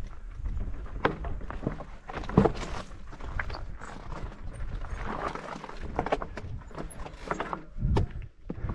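Irregular knocks, clicks and scuffs of a mountain bike on a rough, stony track, over a steady low rumble.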